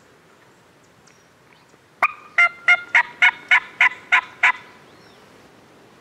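A series of about nine evenly spaced turkey yelps, loud and close, over roughly two and a half seconds, with a sharp click just before the first note.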